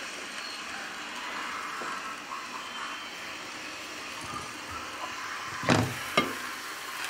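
A glass pan lid is lifted off a frying pan where a thin crepe is cooking, clinking against the pan twice in quick succession about six seconds in, over a steady faint hiss.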